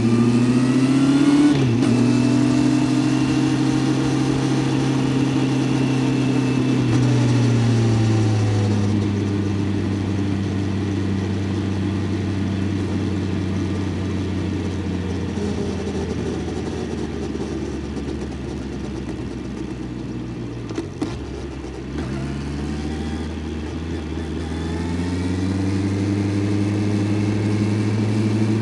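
Honda CBR650F's inline-four engine under way: it revs up and changes gear about a second and a half in, holds steady, then drops in pitch as the bike slows. It runs low for a long stretch with a brief dip about three-quarters of the way through, then climbs steadily in pitch as the bike accelerates near the end.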